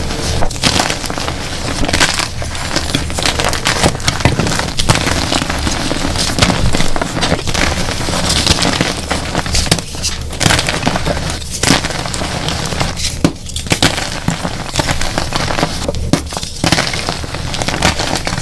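Dyed gym chalk blocks being crushed and crumbled by hand: dense, continuous crunching and crackling with many sharp snaps.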